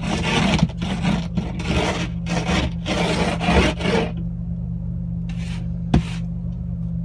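Rapid, rough scraping strokes for about four seconds over a steady low hum, then a single sharp knock about six seconds in.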